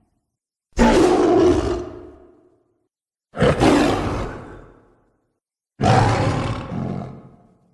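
Three monster-roar sound effects for the Hulk-like 'Bulk' character, one after another. Each starts suddenly and fades away over a second or two, with dead silence between them.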